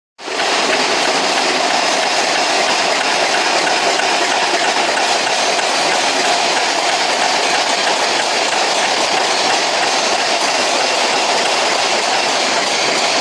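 Excavator running and working, a steady, dense mechanical noise of engine and clatter that fades in right at the start and holds level.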